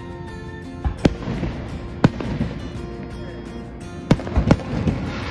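Aerial firework shells bursting: sharp booms about one and two seconds in, then a quick cluster of bursts about four seconds in.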